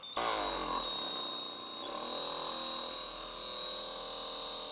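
RTC Vibralift vibrating suction cup's battery motor running at low speed on its variable-speed trigger, a drone with a steady high-pitched whine over it. The pitch drops just after the start, then holds steady.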